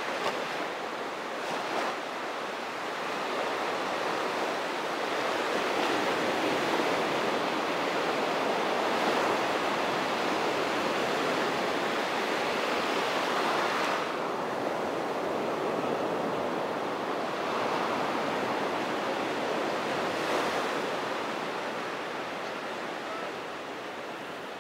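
Small surf waves breaking and washing up on a sandy beach, a steady rush that swells and eases as each wave comes in, fading near the end.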